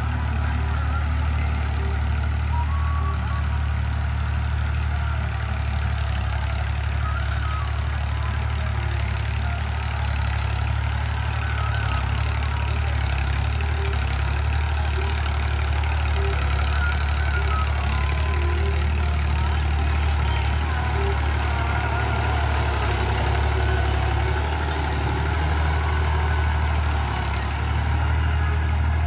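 Ghazi diesel tractor's engine running steadily under load as it pulls a tined cultivator through field stubble. The drone is even and low-pitched, with no change in speed.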